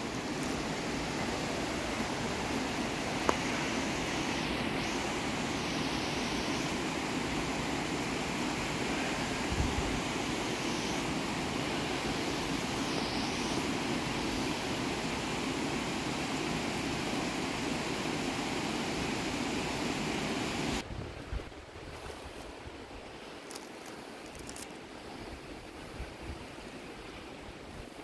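Steady rush of falling water from a mountain waterfall or creek. About 21 seconds in it drops suddenly to a much quieter hiss with a few faint knocks.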